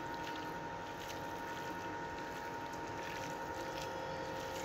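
Hands squeezing and mixing thin slices of mutton in a wet spice marinade, giving soft squelching, over a steady background hum.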